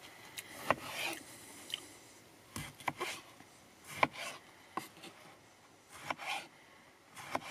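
A commando knife slicing through an eggplant on a wooden cutting board: a series of sharp taps as the blade meets the board, with short rasping cuts between them.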